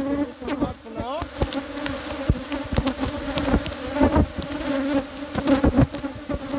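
Honey bees buzzing around an open hive: a steady hum, with a bee or two flying close past about a second in, rising in pitch. Scattered light knocks and clicks sound over it.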